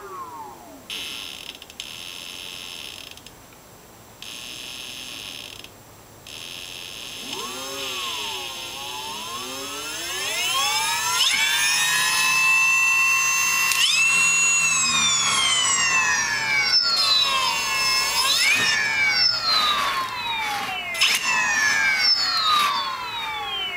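MAC 2000W lawnmower motor running unloaded on a 20S pack (about 76 V) and whining as it is spun up and down. The pitch rises, holds high for a few seconds, then falls and climbs again several times, ending on a falling whine.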